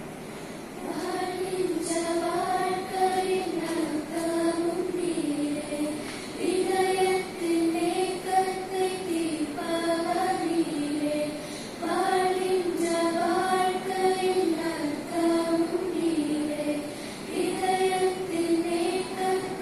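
Youth church choir of girls and boys singing together through microphones, the voices carrying one melody line. The singing starts about a second in and goes in phrases with short breaths between them.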